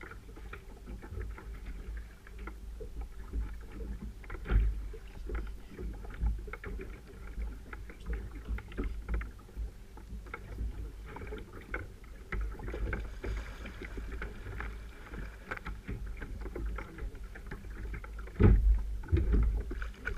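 Sea water slapping and sloshing against a paddle ski's hull in choppy water, with irregular knocks and thumps on the hull; a loud thump about four and a half seconds in and a cluster of the loudest thumps near the end.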